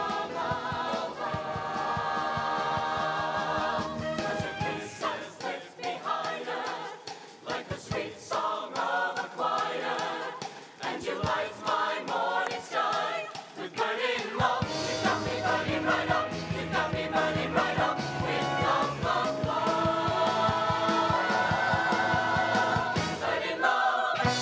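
Show choir singing in harmony over instrumental accompaniment with sharp rhythmic hits, building to a long held final chord near the end.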